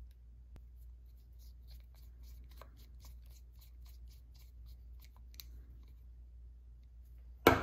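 Screwdriver driving a small screw into a metal chainsaw carburetor body: a run of faint light ticks and scrapes of metal on metal over a steady low hum, then a single sharp knock near the end, the loudest sound.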